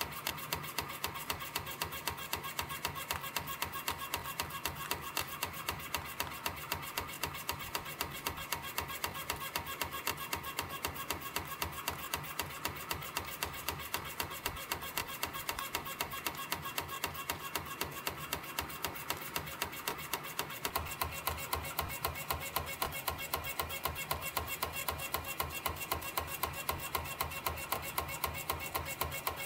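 CNC spring coiling machine (YHM CF-310) running, feeding 0.6 mm wire through its rollers and coiling compression springs, with a sharp, even clicking about three times a second over a steady mechanical hum.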